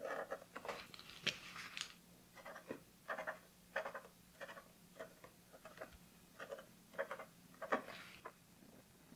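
Acrylic paint marker tip dabbing and scraping on sketchbook paper in short, separate strokes, about one or two a second, as small marks are filled into a leaf. The loudest stroke comes near the end.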